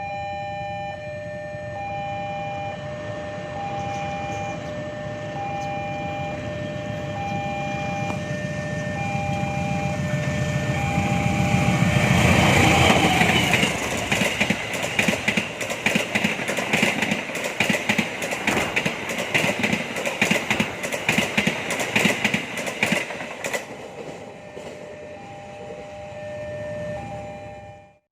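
A railway level-crossing alarm rings in a steady repeating electronic pattern while a train approaches. The train passes loudly from about twelve seconds in, its wheels clattering rhythmically over the rail joints for about ten seconds. As it moves away the crossing alarm is heard again.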